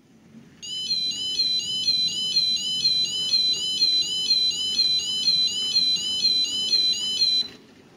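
Model level crossing alarm from a TrainTech LC10 kit's small speaker: an electronic warbling yodel, repeating about twice a second, that cuts off suddenly near the end. Under it, a steady low rumble of an OO gauge model train running over the track.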